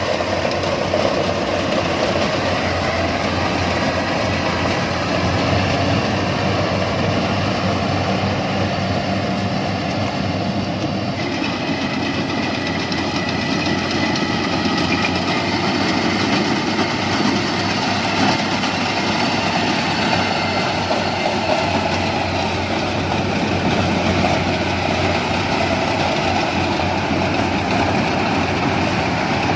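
Yanmar rice combine harvester running steadily, its engine making a continuous drone; the tone of the machine changes about eleven seconds in.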